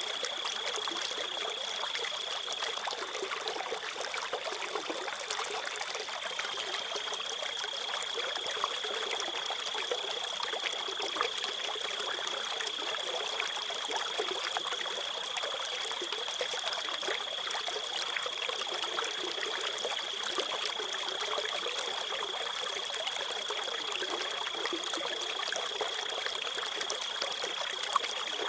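Crickets trilling in one steady high continuous note, over a small stream trickling and babbling. The trill weakens a few seconds in and then carries on.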